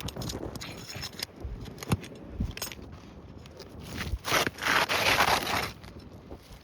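Asphalt roof shingle being worked loose and pulled out: scattered scrapes and sharp clicks, then a loud tearing scrape lasting about a second and a half near the end.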